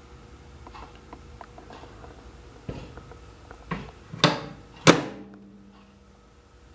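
Several clunks and knocks, the two loudest about half a second apart, followed by a short low hum.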